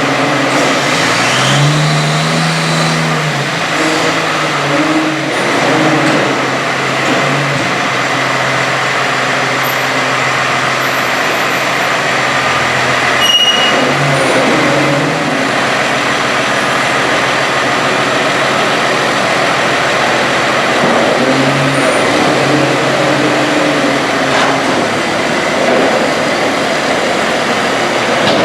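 Engine of heavy farm machinery running steadily, its pitch briefly rising and falling a few times, with a single sharp click about halfway through.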